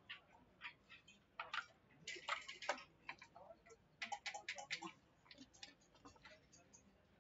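Backgammon checkers and dice clicking on the board during play: a dense rattle of clicks about two seconds in and another quick run of clicks about four seconds in.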